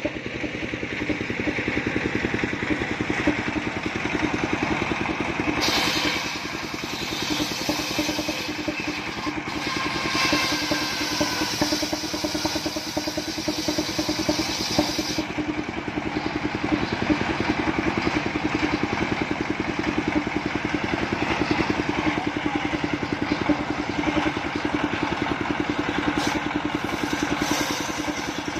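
Stationary engine of a trailer-mounted circular sawmill running steadily, driving the circular saw blade as it rips a coconut palm trunk into beams. A hissing cutting noise grows stronger from about six seconds in and eases off about fifteen seconds in.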